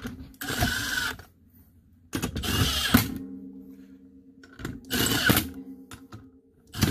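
Cordless power driver spinning the clutch cover bolts in. It runs in about four short bursts of under a second each, roughly two seconds apart, only enough to start each bolt before it is finished by hand.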